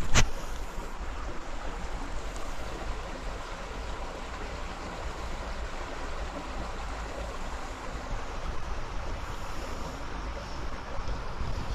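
Steady rush of a small river's flowing water, with wind rumbling on the camera microphone. There is one sharp knock at the very start.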